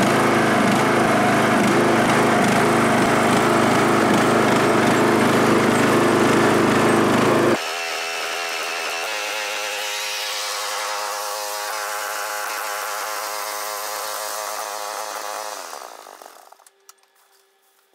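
Riding lawn tractor engine running close up as the tractor is driven. About seven and a half seconds in it drops to a quieter, steadier engine heard from farther off, which fades and stops near the end.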